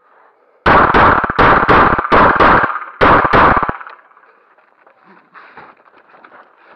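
Semi-automatic pistol fired in a rapid string of about eight shots over some three seconds, mostly in quick pairs.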